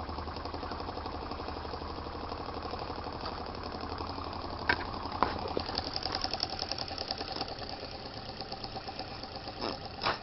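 Small homemade slide-valve steam engine running on breath blown through a straw, its piston and crank making a rapid, even clatter that fades toward the end. Two sharp knocks come about halfway through.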